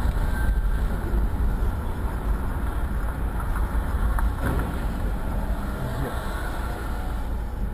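Steady in-car driving noise picked up by a dashcam: a low rumble of engine and tyres on a wet road.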